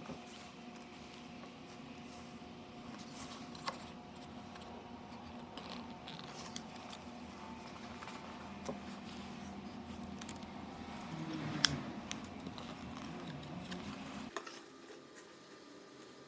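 Light handling sounds with scattered sharp clicks over a steady low hum; the hum cuts off suddenly about fourteen seconds in.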